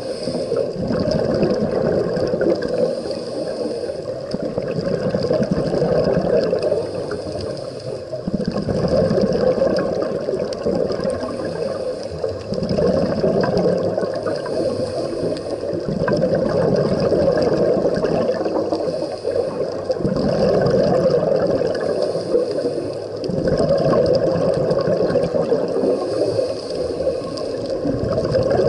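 Underwater bubbling and gurgling that swells and eases about every four seconds, with a faint hiss between the swells: the breathing rhythm of a scuba diver's exhaled bubbles and inhalations through the regulator. No dolphin whistles or clicks stand out.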